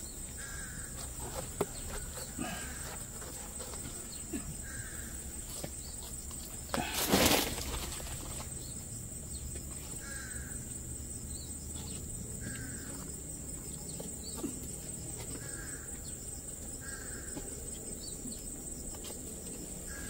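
A bird gives a short call every second or two over a steady, high insect drone. A brief, loud rustle comes about seven seconds in.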